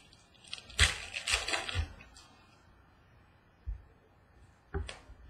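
Trading cards handled by hand: a quick burst of rustling and card-against-card clicks about a second in, then a soft thump and a sharper tap against the desk near the end.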